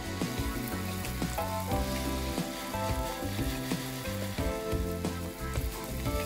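Salt being sprinkled onto diced tomatoes and cucumber in a glass bowl: a steady, crackling hiss with background music under it.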